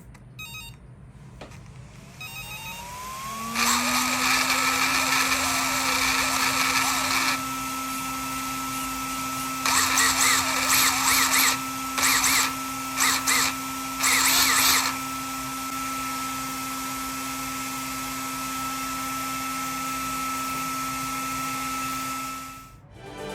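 Electric motor and belt drivetrain of a Tamiya TRF420X RC touring car running for the first time. A whine rises in pitch as it spins up, holds steady with several louder bursts of drivetrain noise, and cuts off near the end.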